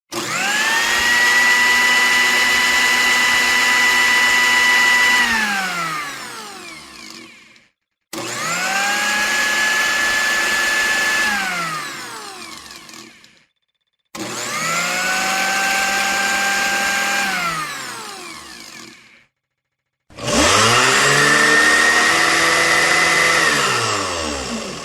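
Kitchen blender run four separate times. Each time the motor whine rises as it spins up, holds steady for a few seconds, then falls away as the motor is switched off and coasts down. In the last run, the pitch wavers up and down while it runs.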